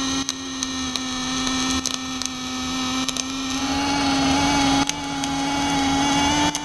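Pulsed MAG welding arc from an EWM Picomig 305 pulse inverter running a bead on 8 mm steel: a steady, even hum at one fixed pitch, with a few crackles in the first three seconds. The smooth humming without spitting is the sign of a spatter-free pulsed arc.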